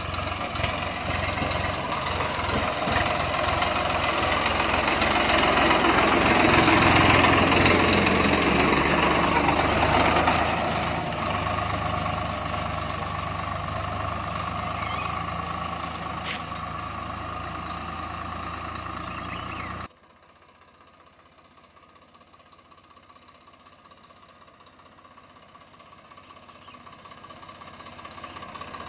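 Swaraj 744 FE tractor's three-cylinder diesel engine running as the tractor drives past, growing louder to a peak about seven seconds in and then fading as it moves away. About two-thirds of the way through, the sound drops suddenly to a faint engine that grows steadily louder as the tractor approaches again.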